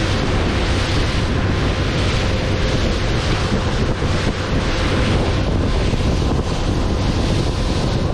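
Wind buffeting the microphone over the rush of water and a faint steady engine hum from a glass-bottom tour boat under way at speed on open sea.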